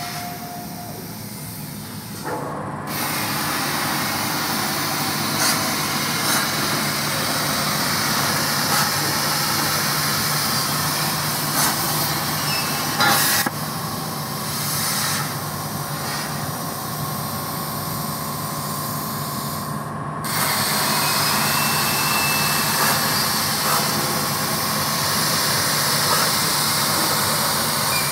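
Start-2A CNC plasma cutter cutting 3 mm mild steel plate. The plasma arc's loud hiss starts about three seconds in, stops around thirteen seconds while the torch sits between cuts, and starts again around twenty seconds. A steady low hum runs underneath.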